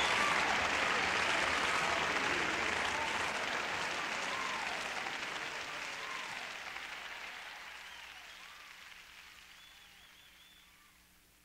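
Live congregation applauding, with a few voices calling out, fading out steadily to near silence near the end.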